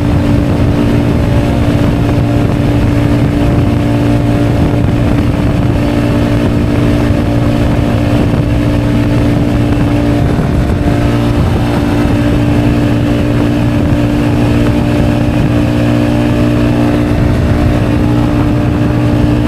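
Nórdica 300 motorcycle running flat out on a top-speed run, its engine note holding steady, with wind buffeting the microphone.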